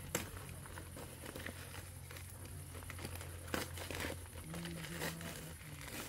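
Fire in a metal grill box crackling, with a few sharp pops, about a fifth of a second in, at three and a half seconds and at five seconds.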